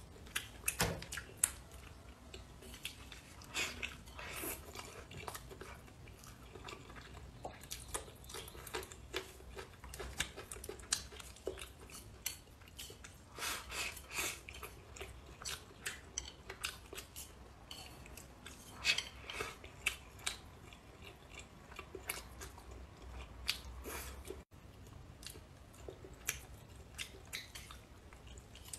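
Close-miked eating: a person chewing and biting into braised chicken, with many small irregular sharp clicks and smacks of the mouth.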